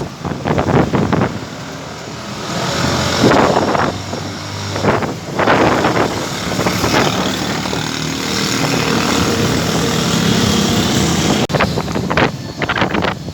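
Storm wind from a dust storm, gusting and buffeting the microphone in loud surges, with rapid flutter near the start and end. A faint steady low hum runs underneath through the middle.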